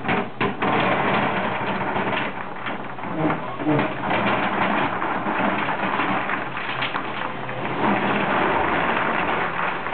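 Load of small cobblestones sliding and clattering out of a crane-held steel rock bucket onto a dirt pile, a continuous rattle of many small knocks. A truck engine runs steadily underneath.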